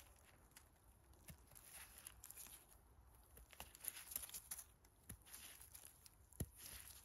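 Faint scraping and a few soft clicks and knocks of a small knife peeling the skin off a wild mushroom cap held in gloved hands.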